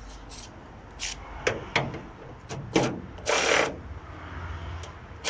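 Scattered sharp clicks and knocks of hand tools and bolts being handled at a van's bonnet hinge, with a short rasping burst about three and a half seconds in.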